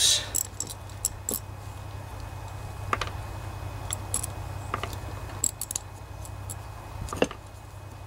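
Scattered light metallic clicks and clinks of a Kohler Command 20 carburetor's aluminium body and small parts being worked loose and handled with gloved hands, two somewhat sharper clicks about three seconds and seven seconds in. A steady low hum runs underneath.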